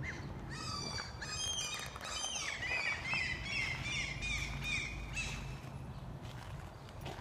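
Small birds chirping busily, with many quick falling chirps overlapping, over a low steady hum. The chirping thins out after about five and a half seconds.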